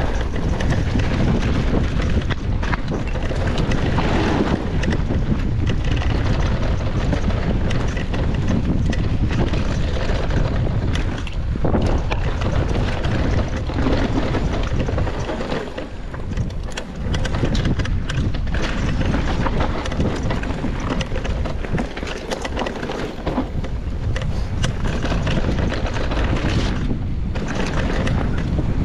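Wind buffeting a bike-mounted camera's microphone during a fast ride down a dirt singletrack on a Rocky Mountain Altitude Powerplay e-mountain bike, with tyre roar and knocks and rattles from the bike over bumps. The noise eases briefly twice.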